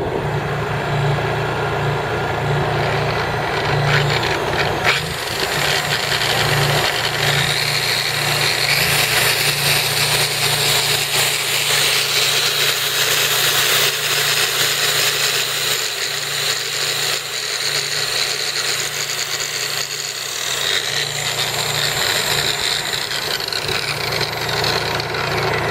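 Honda EU3000is inverter generator running steadily with its eco throttle off. An electric buffer powered by it whirs over the engine hum from about five seconds in until near the end.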